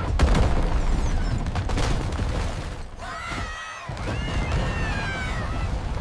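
Cartoon sound effect of a block wall collapsing: a heavy rumble with a rapid clatter of crashing impacts, easing after a few seconds. A drawn-out cry of alarm rises over the rumble about halfway through.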